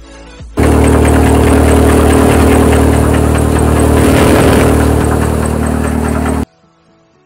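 Ravindra mustard thresher running loudly while threshing mustard, a steady machine hum. It starts suddenly about half a second in and cuts off abruptly near the end, with faint background music either side.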